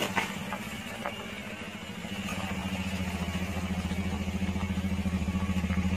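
A vehicle engine running steadily, a low hum with a quick pulsing beat that grows louder from about two seconds in.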